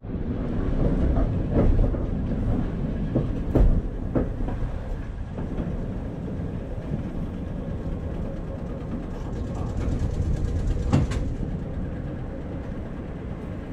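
Vintage electric streetcars rolling slowly side by side on the track: a steady low rumble from the wheels on the rails, with a few sharp clacks of the wheels over rail joints in the first four seconds and another near eleven seconds.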